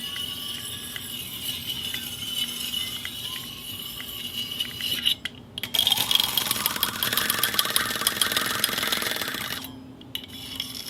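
Fishing reel being worked: a fainter steady whir with light ticks, then, after a short break about halfway in, a dense fast clicking with a whirring that rises in pitch, which stops abruptly about a second before the end.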